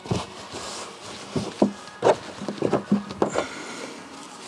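A towel being handled and laid out on a car's rear shelf: a series of short rustles and light knocks.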